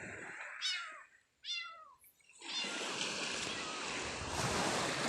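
A cat meows twice, two short bending cries about a second apart. Then a steady rush of seawater washing onto the beach takes over.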